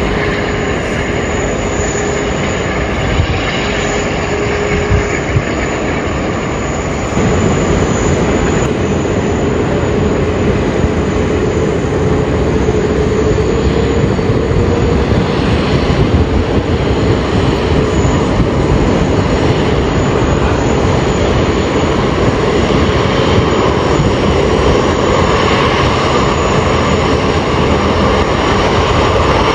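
Jet airliner engines running at high power, a steady, loud rush with a faint held tone. About seven seconds in the sound steps up abruptly to a louder passage, the departing Qantas Airbus A380's four engines, with a whine that slowly rises in pitch.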